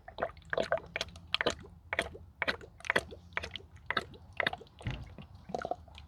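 Antifreeze being poured through a funnel into a car's cooling system, gurgling and glugging in irregular pulses about twice a second.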